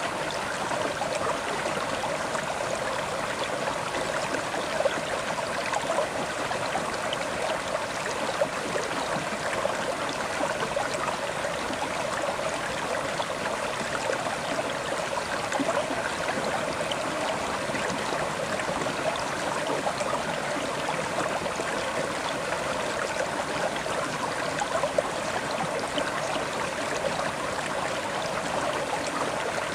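River water flowing and burbling steadily over rocks, an even rushing with small splashes scattered through it.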